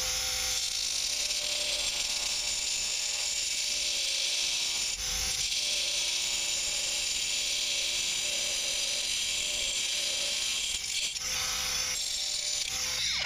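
Bosch GWX 18V-15 SC cordless angle grinder with a multi-material cutting disc cutting into hard structural concrete: a steady motor whine over a dense grinding hiss, easing briefly about five seconds in.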